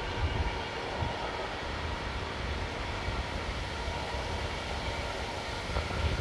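Intermodal container freight train's wagons rolling past on the rails, a steady rumble of wheels on track.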